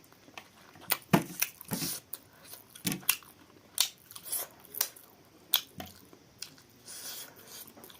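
Close-miked eating: chewing, biting and lip smacks on chicken, with irregular sharp wet clicks and crunches about once or twice a second.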